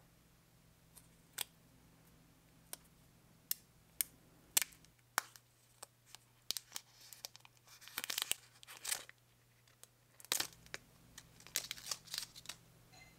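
Faint handling noise: scattered sharp clicks, then bunches of short scraping rustles, as long fingernails and fingertips grip, slide along and turn a plastic Apple Pencil 2 stylus.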